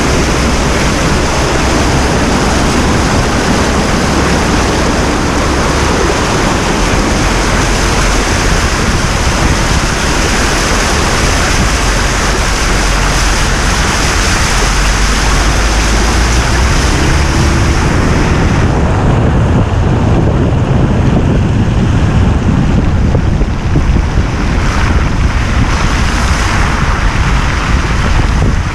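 Loud, steady rushing noise with a strong low rumble underneath; the hiss loses its high end about two-thirds of the way through.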